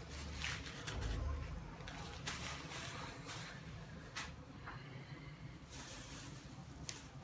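Thin plastic bag crinkling and rustling as it is handled, in short irregular crackles with a few sharp ticks.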